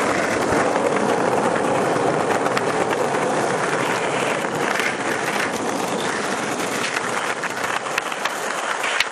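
Skateboard wheels rolling over rough sidewalk asphalt, a steady gritty rumble with a few sharp clacks from the board.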